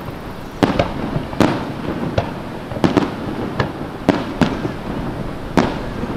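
Aerial firework shells bursting overhead in a string of sharp bangs, about nine at irregular intervals, each with a short echoing tail.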